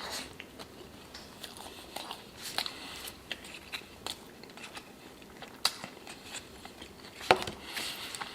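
A person chewing fast food close to the microphone, with irregular wet mouth clicks and crackles and a couple of louder bites.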